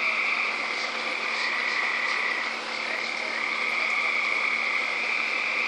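A steady, unbroken chorus of high-pitched frog calls, dipping briefly about halfway through.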